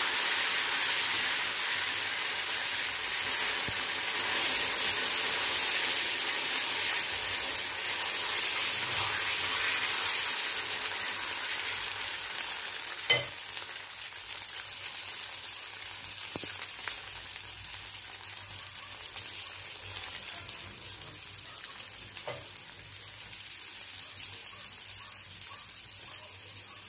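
Oats-and-egg omelette batter sizzling on a hot dosa tawa, loudest at first and settling to a quieter sizzle after about twelve seconds. A single sharp click about thirteen seconds in.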